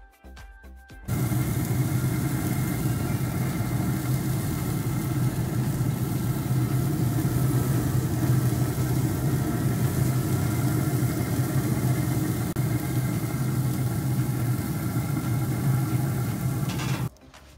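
Steady mechanical hum of a pellet grill's fan running. It starts suddenly about a second in and cuts off just before the end.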